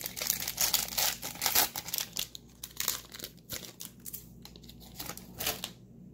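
Hockey card pack wrapper crinkling and tearing as it is ripped open, densest in the first two seconds or so, then a few scattered crinkles that die away near the end.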